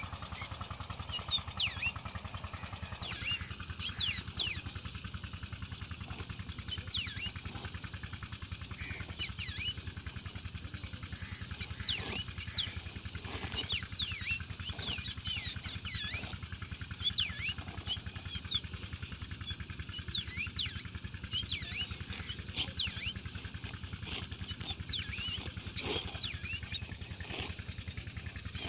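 Grass being cut by hand close to the microphone: many short, irregular crisp snips and rips of stems, with a few sharper cracks, over a steady low rumble.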